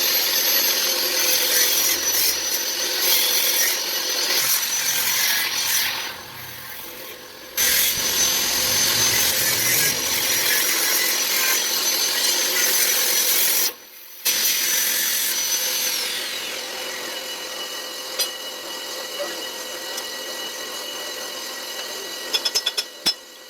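Electric power tool abrading a rusty iron plate with a steady high whine, lifted off the metal twice briefly. About 16 seconds in it is switched off and its whine falls as it winds down. A run of sharp clicks follows near the end.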